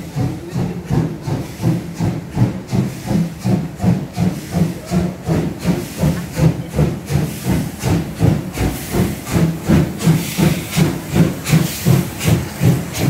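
Class 50 steam locomotive 50 3648 working hard as it pulls away, its exhaust beats coming in a steady, slightly quickening rhythm of a little over two a second. From about eight seconds in, a loud steam hiss joins the beats as the engine passes close by, with steam venting around its wheels and cylinders.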